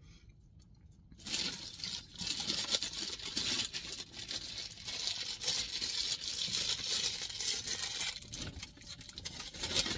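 A fast-food bag and wrappers rustling and crinkling as a hand rummages through them to find a burger. The sound starts about a second in and thins out near the end.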